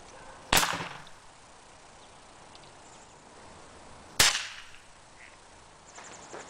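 Two loud, sharp shots about three and a half seconds apart from a Tech Force 97 underlever spring-piston air rifle, each a single pop with a short ringing tail. The rifle is dieseling: motor oil dropped into the pellet skirt ignites under piston compression.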